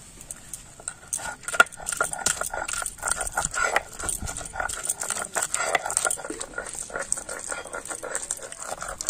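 Bengali shil-nora (flat stone grinding slab and hand stone) grinding raw prawns into paste: a quick, continuous run of rough rasping back-and-forth strokes of stone on stone, starting a moment in.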